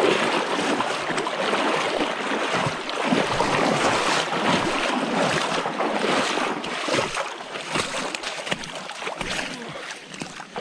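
Creek water rushing and splashing close by, an even wash of noise broken by irregular little splashes, growing quieter near the end.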